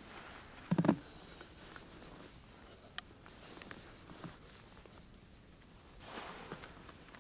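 Quiet camp handling sounds. About a second in there is a short low knock at the small sheet-metal tent stove as wood is fed in, then soft scraping swishes of a small kettle scooping powder snow, with a few light clicks.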